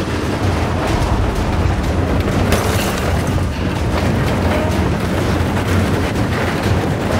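A heavy 8x8 armoured truck driving over and crushing a cargo van: a deep continuous engine rumble under load, with repeated crunches of metal and breaking glass as the van's body caves in under the wheels.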